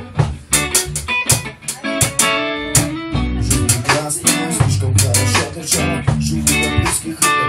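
Live band music: a drum kit keeping a steady beat with cymbal hits, under low bass guitar notes.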